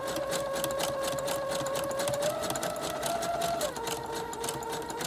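Brother electric sewing machine running, zigzag-stitching through hair wefts with an open (zipper) presser foot: a steady motor whine over fast, even needle ticking, the motor speeding up a little about two seconds in, easing off near four seconds and picking up again at the very end.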